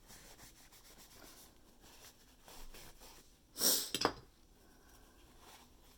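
Faint rubbing and scraping of a paper towel wiping dirty parts of a sock-machine ribber, broken about three and a half seconds in by a short, loud burst of breath noise from the person.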